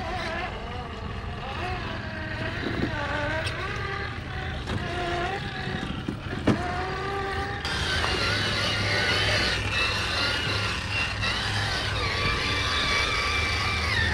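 Electric motor and gear drive of a scale RC rock crawler whining, the pitch rising and falling with the throttle, with a couple of sharp knocks. From about eight seconds in, a higher whine grows louder.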